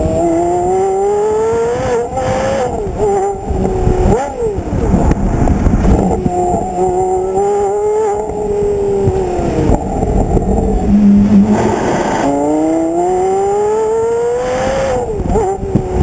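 Porsche Carrera GT's V10 heard close up at its exhaust, pulling hard with the pitch climbing and then dropping at each quick upshift. Around the middle it eases off and falls in pitch, then about twelve seconds in it accelerates hard again.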